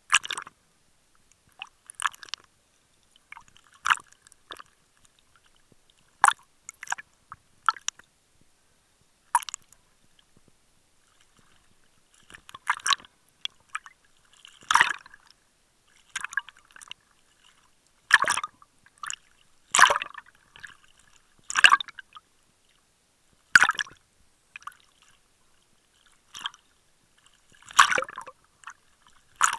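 Small waves slapping and splashing against a waterproof camera housing bobbing at the water's surface, in irregular bursts about one to two seconds apart with quiet gaps between.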